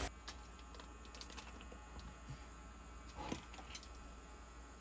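Faint clicks and small handling noises as a charger cable and a small circuit board are handled, with one louder click a little over three seconds in.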